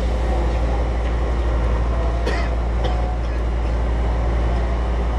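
Steady low rumble and hum inside a Keihan 1000 series electric train car, with a brief sharp sound a little over two seconds in.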